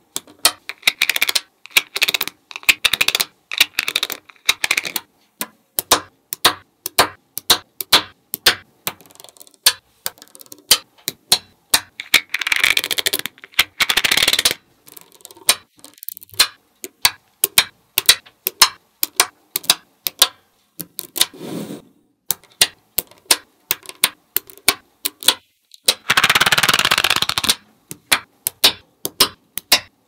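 Magnetic balls clicking as strips of them are snapped onto a panel of balls: a rapid, irregular run of sharp clicks, with two longer rattling stretches, one a little before halfway and one near the end.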